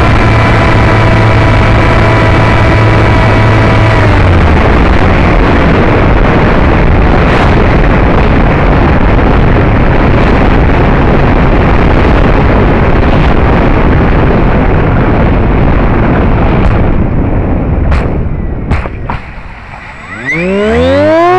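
RC seaplane's electric motor whining steadily, then cutting off about four seconds in. A loud, steady rushing of wind and water spray on the onboard camera follows as the plane glides down and skims across flooded grass, with a few sharp knocks near the end. Just before the end the noise drops away and a whine rising in pitch starts.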